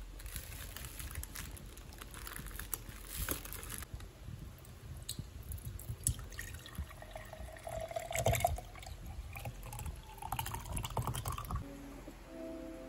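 A thick green drink poured from a plastic bag into a glass: liquid splashing and running into the glass, with crinkling and clicks from the bag being handled.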